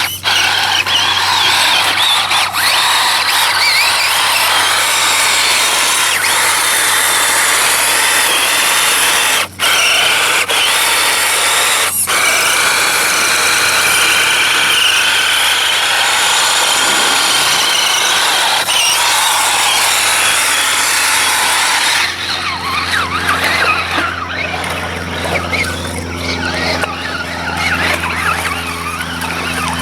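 Axial SCX10 RC truck's electric motor and gears whining under throttle as it drives through mud, broken by abrupt cuts; about two-thirds of the way through it drops to a quieter, rougher sound over a steady low hum.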